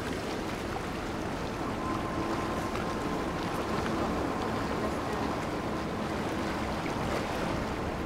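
Steady outdoor noise of wind and water, with faint held tones underneath.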